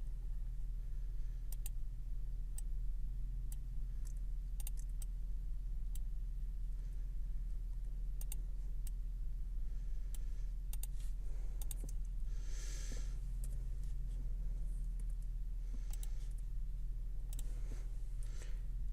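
Scattered sharp clicks of a computer mouse and keyboard, irregular and spaced a second or so apart, over a steady low electrical hum. A brief soft hiss about twelve seconds in.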